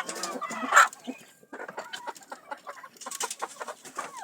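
A flock of chickens clucking, many short calls overlapping, with a louder call just under a second in.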